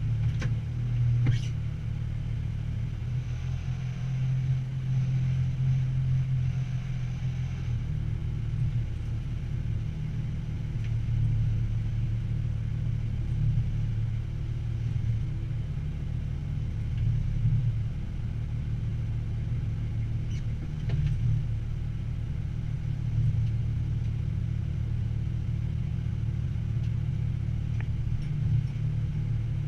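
A military truck's engine running at low speed during slow manoeuvring, heard from inside the cab as a steady low rumble that swells and eases slightly.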